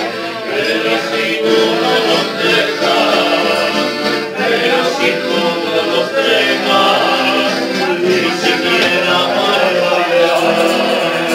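Live accordion playing with men singing along and a guitar accompanying, a lively song with held accordion notes under the voices.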